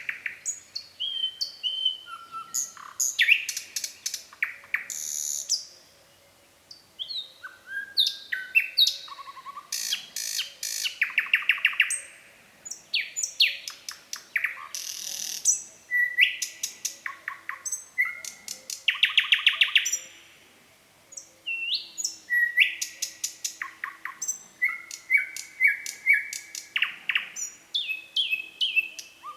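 Nightingale singing its varied song: phrase after phrase of clear whistles, sharp repeated notes and fast rattling trills, broken by two short pauses.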